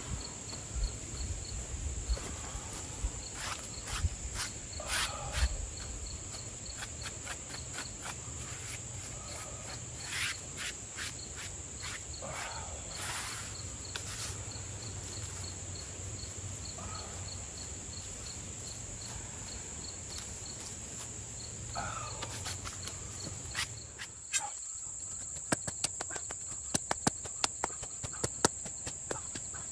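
Steady high drone of an insect chorus, with a cricket-like chirp repeating several times a second. Scattered rustles and sharp clicks and knocks come over it, with a quick run of clicks near the end.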